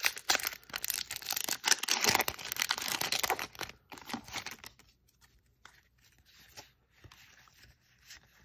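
Foil trading-card booster pack wrapper being torn open, with crackling and crinkling for about three and a half seconds. After that come faint, scattered rustles as the cards are handled.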